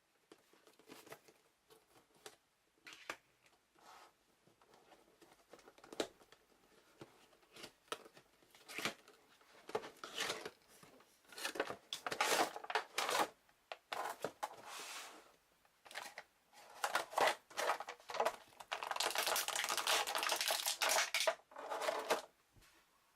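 Cardboard box and plastic packaging of a toy action figure being opened by hand: scattered clicks and taps, then tearing and crinkling rustles that grow denser, with a longer continuous crinkle about three seconds before the end.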